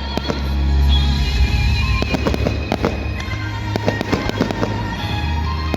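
Fireworks bursting and crackling in quick, irregular succession over loud music with held notes and a heavy bass line.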